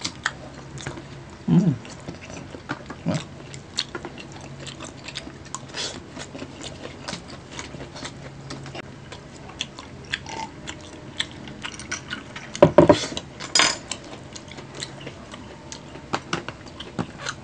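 Close-miked eating: chewing and wet mouth clicks, with small clicks of plastic spoons against plastic take-out trays. A louder clatter of handling comes about two-thirds of the way through.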